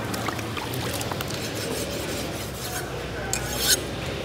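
A big knife scraping scales off a large whole fish: repeated rasping scrapes with small clicks, the loudest and longest scrape about three and a half seconds in.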